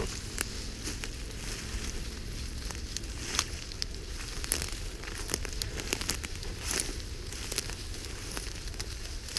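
Dry grass stems and bushes rustling and crackling as someone pushes through tall vegetation on foot, with irregular sharp snaps throughout.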